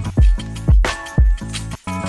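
Background music with a steady beat of about two deep drum hits a second over sustained bass and chords.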